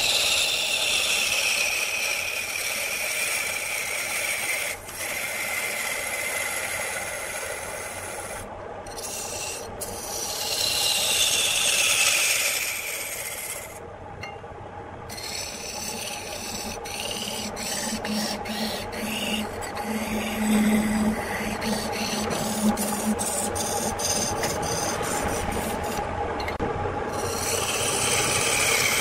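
Turning tool shaving a wooden blank as it spins on a lathe: a hissing scrape that comes in passes, each sliding down in pitch, at the start, around ten seconds in and again near the end. Between passes, a low steady hum and a run of sharp clicks.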